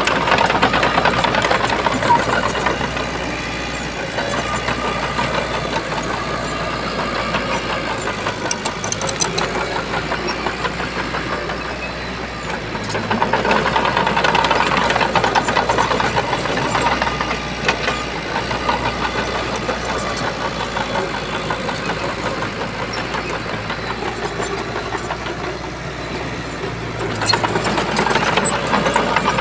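Shantui bulldozer's diesel engine running steadily, swelling louder three times, about every thirteen to fourteen seconds, as the machine works.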